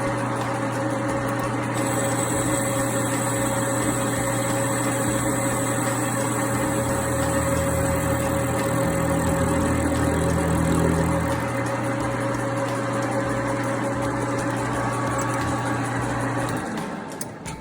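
Metal lathe running steadily while taking a cut with a carbide tool bit, with a steady hum of several fixed tones. It shuts off about a second before the end.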